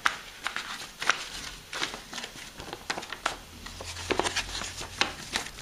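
Paper booklet pages rustling and flicking as they are turned by hand, with scattered light clicks and taps of handling.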